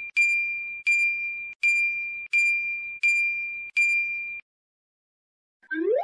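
A bright, single-pitched ding repeated about every 0.7 s, six strikes each ringing and fading, stopping about two-thirds of the way through. This is a chime sound effect. Near the end comes a short upward-sliding sound.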